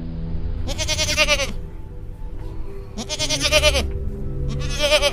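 An animal bleating three times, each call short and wavering, over steady background music.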